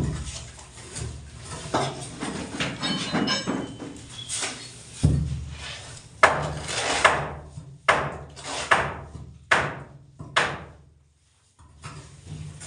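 Irregular knocks and strikes on wood, as in hammering on construction work, spaced about a second apart in the second half.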